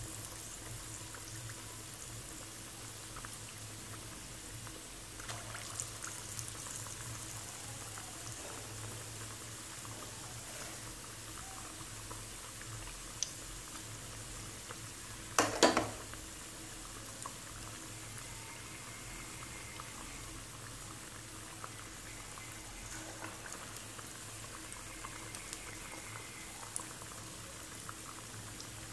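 Potato bondas in batter deep-frying in hot oil in a steel kadai: a steady bubbling sizzle, with a single sharp knock about halfway through.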